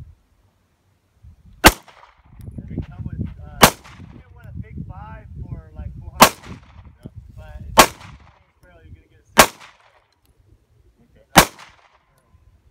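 Six single pistol shots, fired one at a time about one and a half to two and a half seconds apart, each a sharp crack.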